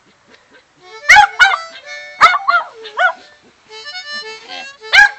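A Yorkshire terrier yelping and howling along to a harmonica in several short cries that rise and fall in pitch. Between the cries, the harmonica plays steady chords.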